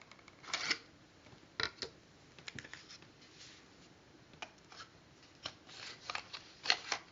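Faint, scattered clicks and soft rustles from handling paper or card, a dozen or so brief ticks with a few longer rustles between them.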